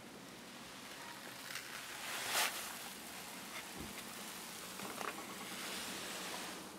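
Quiet rustling and handling noise as a handheld camera is turned around inside a car cabin, with a louder rustle about two and a half seconds in and a few light knocks and clicks later.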